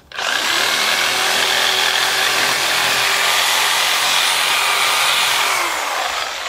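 Corded reciprocating saw running at full speed, its blade cutting through thick shrub roots in the soil. Near the end the motor slows and its pitch falls.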